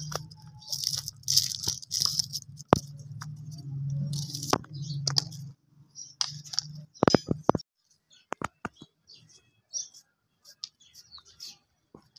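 Onions being peeled by hand with a knife: papery skins crackling and rustling, with sharp clicks of the knife and peels against a plastic basket. A low steady hum runs under it and stops about five and a half seconds in.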